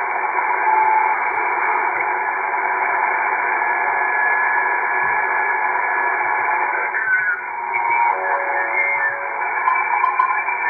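Shortwave receiver audio from an RTL-SDR dongle being tuned across the 40-metre amateur band. A steady, thin, narrow-band static hiss, with short heterodyne whistles at different pitches coming and going, including a falling whistle about seven seconds in.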